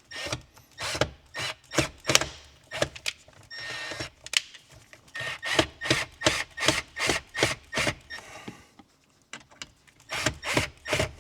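A series of sharp clicks and knocks from hand tools and screw hardware being worked. They come irregularly at first, then in a quicker run of about three a second, and after a short pause a few more near the end.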